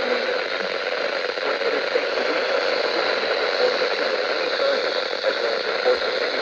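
Steady hiss of static from a radio receiver, with faint voice-like sounds that cannot be made out underneath it.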